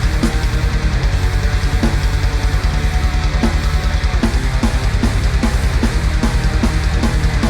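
Distorted electric guitar playing a metal riff through a Cort MX15 practice combo amp, over a drum backing with a fast, even kick-drum pulse.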